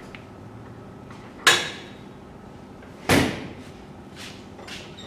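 Two loud bangs about a second and a half apart, each dying away briefly, with a few fainter knocks after them.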